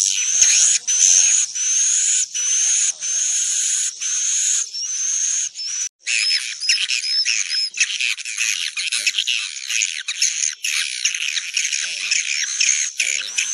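Swiftlet calls played as a lure to draw the birds to roost: a rising chirp repeated every second or less, then after a sudden break about six seconds in, dense overlapping twittering chatter.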